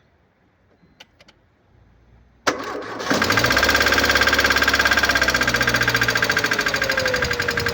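A Mercedes-Benz A160's 1.5-litre four-cylinder petrol engine is started: a couple of clicks, a moment of cranking about two and a half seconds in, and then it catches and idles with a fast, even ticking rattle. The seller puts the noise down to a defective hydraulic cylinder.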